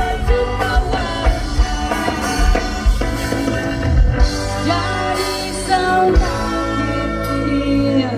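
Live ska band playing on stage: a singer over electric guitars, bass and drums.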